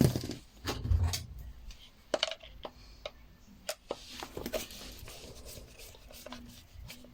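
Scattered clicks and knocks of small hard parts and tools being handled during the water-pump repair, with a heavier thump at the start and again about a second in.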